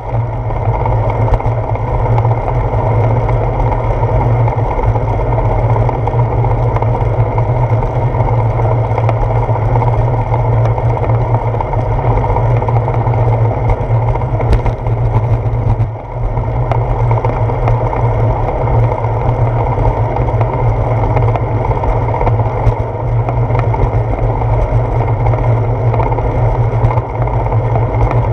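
Steady, loud wind and road rumble on a handlebar-mounted camera as a bicycle rolls along a concrete path. There is a short dip about sixteen seconds in.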